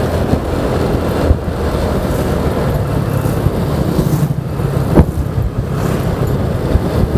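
Honda Vario 125 scooter's single-cylinder engine running steadily at road speed, with two short knocks, the louder about five seconds in.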